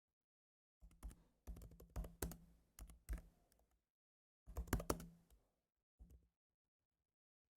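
Keystrokes on a computer keyboard, typed softly in short irregular runs of clicks with brief pauses between them.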